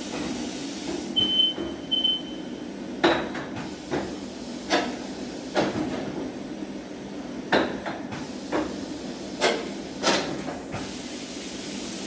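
Wheel washing machine working: two short high electronic beeps, then a series of sharp metallic clanks and knocks, about nine of them at irregular intervals, over a steady running noise as its rack moves the wheels.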